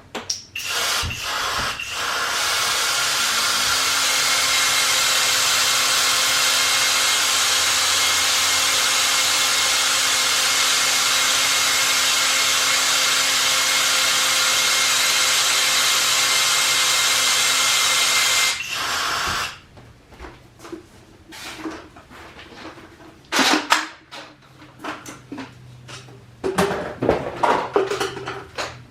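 Battery-powered caulking gun motor running steadily with a faint whine as it forces moldable packing into the gland, cutting off sharply after about eighteen seconds. Scattered clicks and knocks from handling the gun follow.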